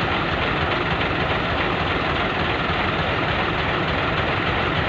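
Truck engine running steadily with road noise, a low, even rumble.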